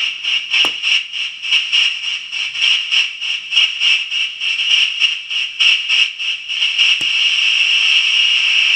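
Homemade white-noise machine pedal putting out distorted hiss, mostly in a high band, chopped by its tremolo into about three pulses a second. A toggle switch clicks about half a second in and again about seven seconds in; after the second click the pulsing stops and the noise runs steady.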